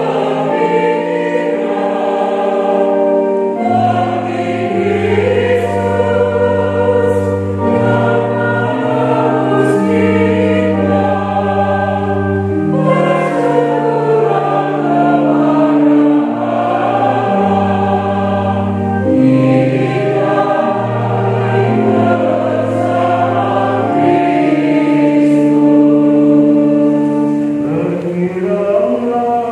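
A church choir sings a slow hymn in several parts, with long held chords that shift every second or two over a steady bass line.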